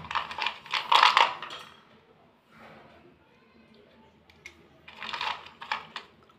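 Thick white slate pencils clicking and clattering against one another as they are handled and sorted by hand. The sound comes in two clusters of clacks, with a quieter lull of a few seconds between them.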